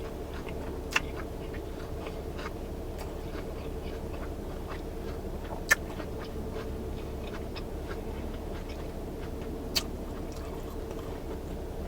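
Someone eating tacos: quiet chewing with a few sharp mouth clicks, about a second in, near the middle and near the end, over a steady low hum.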